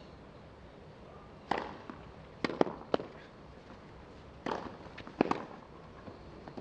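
Tennis rackets striking the ball: a serve about a second and a half in, then a rally of shots, each a sharp pop, roughly a second or so apart.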